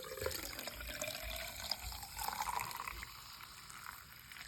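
Muriatic acid being poured into a jar, the pouring tone rising in pitch as the jar fills and fading out about three seconds in.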